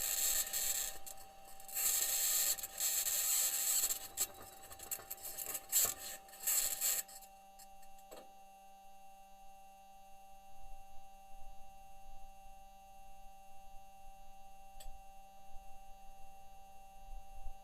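Perseverance rover's metal wheels grinding and scraping over Martian rock in rough bursts, as caught by its onboard microphone; the scraping stops about seven seconds in. A steady electronic hum with a few faint clicks runs beneath and is left alone after that.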